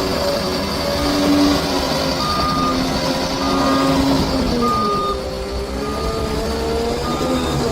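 Bulldozer's diesel engine running under load while its reverse alarm beeps about once a second. The engine note rises and falls a little as the machine works.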